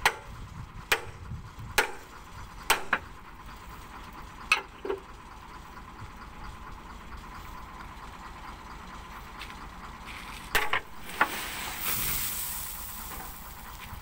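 Sharp metal knocks, about a second apart at first, as the tailgate latch of a tipper truck is struck loose with a hand tool. A louder double clang comes about ten seconds in, then a rushing hiss near the end as loose soil slides out of the tipping bed. A truck engine idles underneath throughout.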